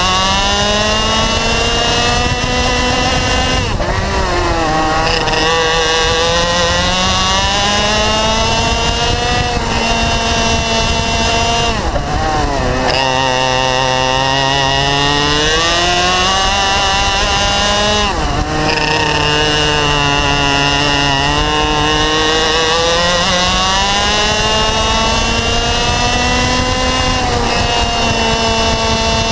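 Racing kart's two-stroke engine at full throttle, heard onboard: the revs climb steadily along the straights and fall sharply each time the driver lifts for a corner, several times over, before climbing again.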